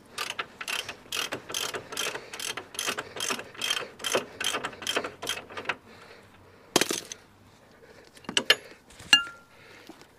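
Ratchet ring spanner clicking rapidly, about five clicks a second, as a 24 mm suspension nut is spun off. Later comes a louder single click, then a few metal clinks, one ringing briefly.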